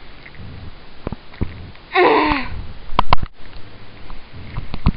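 Handling noise and low rumbling as dolls are carried and moved by hand close to the microphone. About two seconds in comes a short voiced sound that falls in pitch, like a girl's groan. A few sharp knocks follow about a second later.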